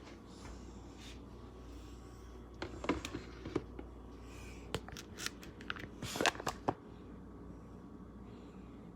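Food packages being handled and set down: a run of crinkling, clicks and light knocks for about four seconds in the middle, over a steady low hum.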